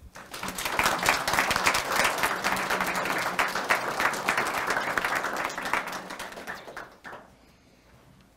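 Audience applauding: a dense round of clapping that builds up quickly, then thins out and dies away about seven seconds in.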